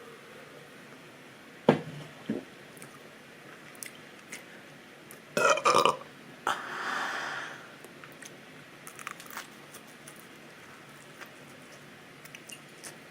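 A person burps loudly about five seconds in, a rough, short belch brought up by the carbonated seltzer kombucha, trailing off in a breathy sound. Two sharp clicks come near the start, and quieter open-mouthed chewing clicks follow later.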